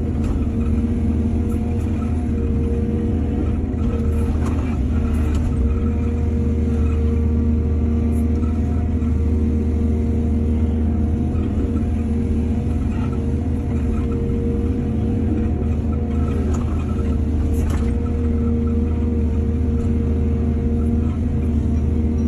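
A heavy diesel engine, such as an excavator's, running steadily with a deep drone, with a few faint knocks about four seconds in and again near the end.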